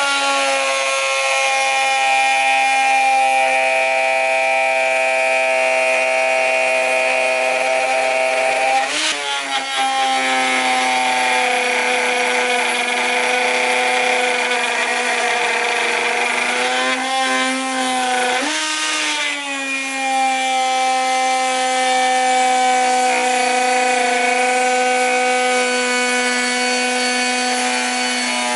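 Makita cordless die grinder running with a Kutzall ball-nose rasp cutting into a wood block: a steady high whine over a rasping cut, holding its speed under heavy load. The pitch wavers briefly about nine seconds in and again around seventeen to nineteen seconds in, then settles back.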